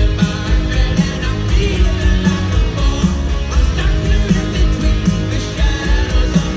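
Live rock band playing with electric guitars, bass and drums at a steady beat, with a singer, heard from the crowd in a large arena.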